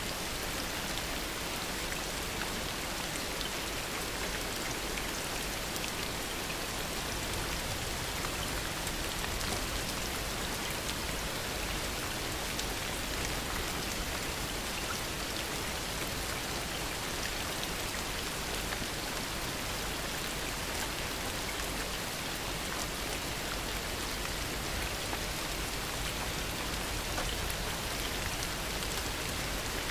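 Steady heavy rain falling, an even hiss dense with fine drop patter, with no change or thunder clap.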